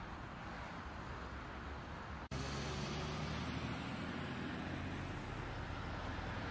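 Steady road and engine noise of a moving vehicle, heard from inside it through a dashcam's microphone. It cuts out briefly about two seconds in and returns slightly louder, with a low, steady engine hum.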